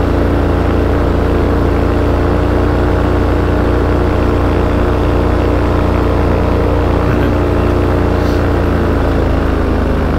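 Paramotor engine and propeller running steadily at cruise power in flight.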